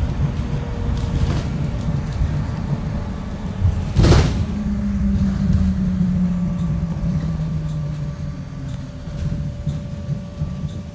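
2018 Blue Bird Vision school bus driving along, heard from inside the passenger cabin: steady engine and road rumble. A sharp thump comes about four seconds in. Then an engine hum holds steady for a couple of seconds and steps lower in pitch.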